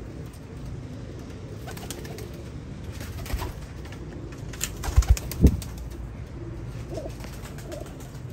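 Domestic pigeons cooing softly, the calls coming near the end, over a steady low background. Three heavy thumps, the loudest sounds here, come about five seconds in.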